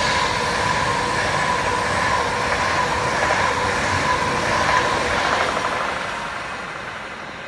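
Class 390 Pendolino electric train passing at speed, a loud rush of wheels and air with a steady whine, fading near the end as it runs away.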